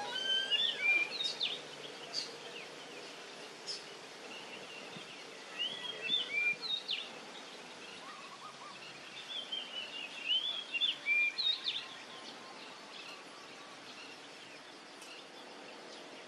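Small birds chirping in several short bursts of quick, curving notes, over a steady outdoor background hiss.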